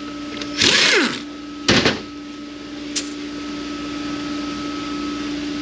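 Power impact gun fired in two short bursts on transmission bolts, its whine falling off after each trigger pull, then a steady background hum.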